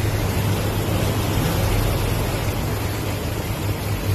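Flash floodwater from heavy rain rushing down a paved street as a fast, muddy torrent: a steady, even rushing of water.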